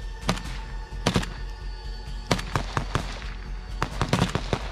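Rifle gunfire at close range: irregular single shots, then quicker strings of shots, with a dense cluster near the end.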